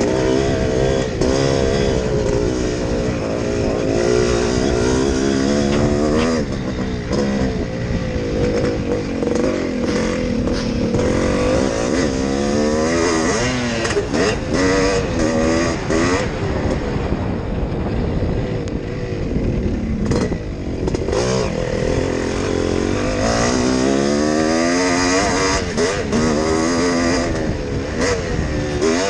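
Yamaha YZ465G's two-stroke single-cylinder engine at race pace, heard from on board the bike, revving up and dropping back again and again as the rider works the throttle and gears. The engine eases off for a few seconds about halfway through.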